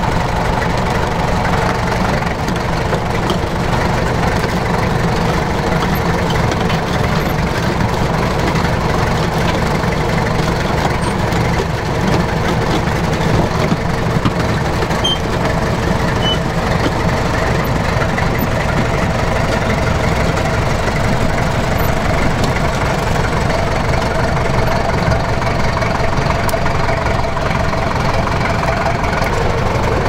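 Soviet T-100 crawler bulldozer's 10.8-litre diesel engine running steadily as the dozer drives down off a trailer ramp onto the ground.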